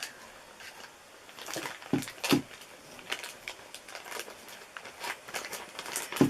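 Scissors cutting through plastic packaging, with the wrapping crinkling and rustling between a few sharp snips, the loudest around two seconds in.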